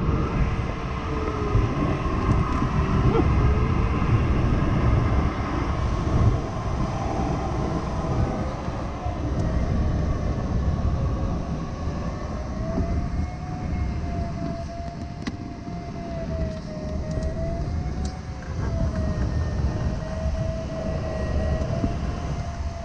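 Steady rush of airflow over a glider's canopy, heard in the cockpit of a Nimbus 3DT in free flight. Over it runs a single electronic variometer tone that slowly rises and falls in pitch as the glider climbs and sinks.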